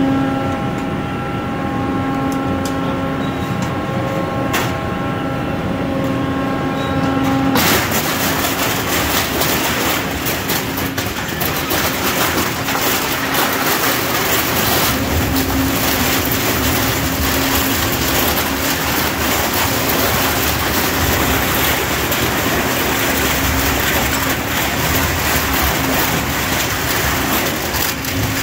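An industrial twin-shaft shredder runs empty with a steady hum. About seven and a half seconds in, it starts crunching a photocopier between its hooked cutters: a dense, continuous cracking and grinding of plastic and metal being torn apart.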